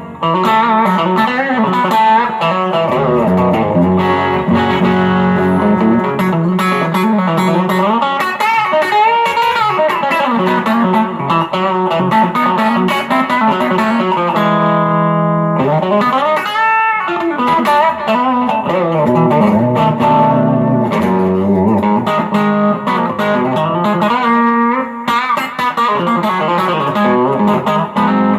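M-Musi Virgo Fusion electric guitar with humbucker pickups, played through a Quilter Super Block US amp: a continuous run of notes and chords with several string bends. The tone has a touch of overdrive because the humbuckers' higher output pushes the amp's gain.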